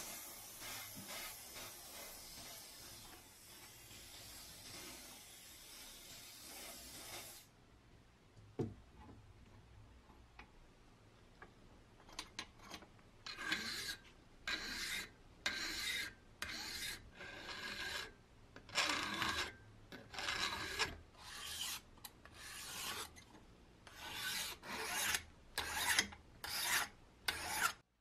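A steady spray hiss from an aerosol can of oil for about the first seven seconds. After a few quieter seconds comes a long run of hand-file strokes on a brass lock part clamped in a vise, about one stroke a second.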